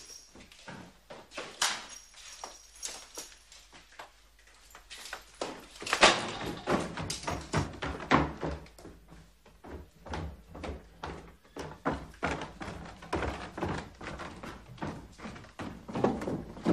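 Boots hurrying down a stairwell in a string of irregular knocks, with a loud bang about six seconds in.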